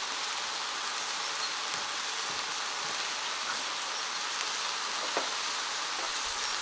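Beef, pork and vegetables sizzling steadily in a wok over a wood fire, an even frying hiss.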